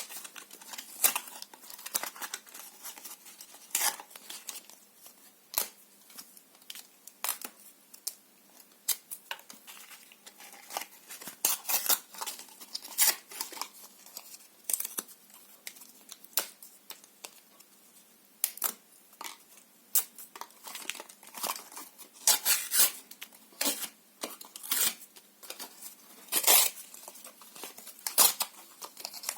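Paper and cardboard being torn and crumpled by hand in irregular short rips and crackles, with brief pauses between and the rips coming thicker near the end.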